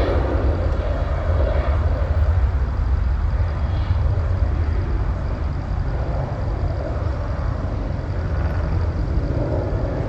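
Jet aircraft taking off, its engines a steady low rumble under a broad noise, with a faint high whine above it.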